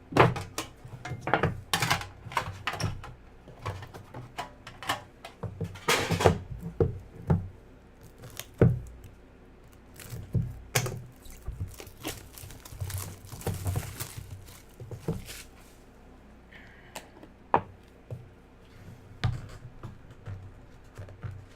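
Cardboard trading-card box being opened and handled on a table: an irregular run of knocks, taps and rustles, with a brief scratchy slide or tear about halfway through.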